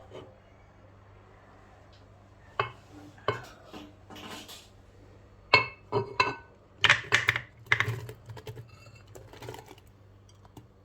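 Kitchen utensils and dishes being handled, clinking and knocking: two separate knocks, then a quick run of sharp clinks near the middle. A steady low hum runs under it.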